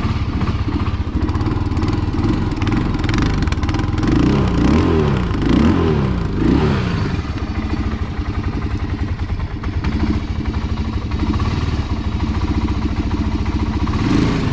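Four-wheeler (ATV) engine running cold just after starting, revved up and down several times a few seconds in, then running on at a low idle. The idle is set too low for the cold engine.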